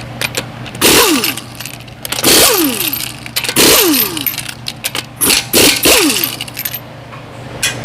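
Cordless impact wrench spinning lug nuts off a car wheel in several short bursts. Each burst is followed by a falling whine as the motor spins down.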